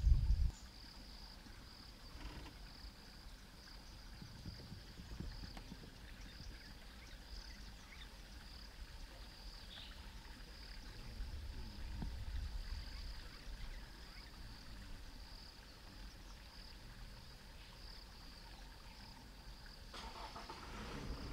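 A steady, high-pitched insect chorus with a slight pulse, over a faint low rumble. A brief loud low rumble opens the clip and cuts off within the first half second.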